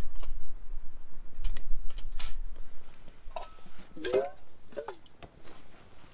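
Stainless-steel camping cup and canteen clinking and scraping as they are handled and the cup is set down, with short ringing metal tones about three to five seconds in. Wind rumbles on the microphone during the first couple of seconds.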